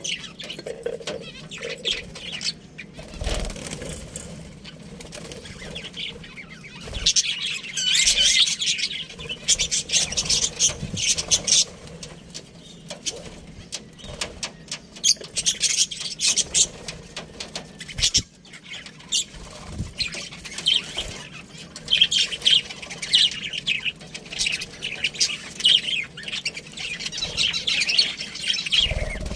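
Budgerigars chirping and chattering in rapid bursts of short, high chirps, with a few brief low thumps.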